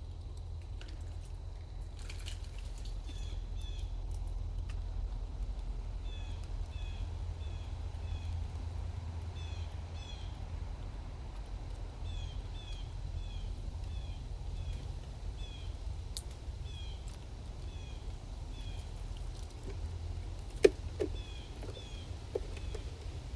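A small bird calling over and over in short, high, down-slurred chirps, mostly in pairs, over a steady low rumble. A sharp tap comes a few seconds before the end, followed by a few softer knocks.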